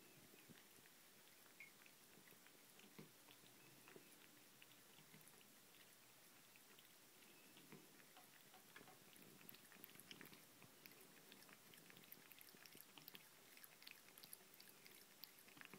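Faint lapping of a cat drinking from a thin trickle of tap water: soft, wet clicks of the tongue that come more often in the second half.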